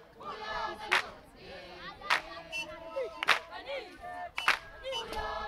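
A seated group clapping hands in slow unison, one sharp clap about every 1.2 seconds, to keep time for a Zulu ingoma dance, with voices calling and chanting between the claps.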